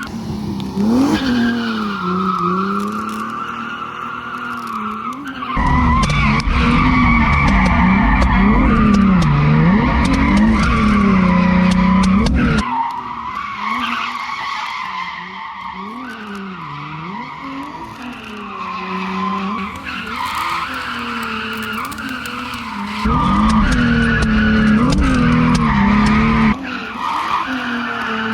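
Drift car being driven sideways, its engine revving up and down again and again while the tires squeal. It gets much louder and heavier from about six to twelve seconds in and again for a few seconds near the end.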